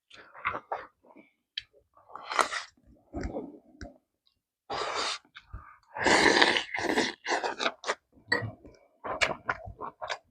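A person eating pork kimchi stew close to the microphone: irregular wet chewing and mouth noises, with two longer noisy stretches about five and six seconds in.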